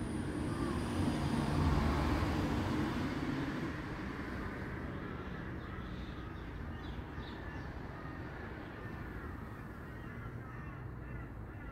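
Outdoor ambience: birds calling in short, repeated arched calls over a low rumble that swells about two seconds in and then slowly fades.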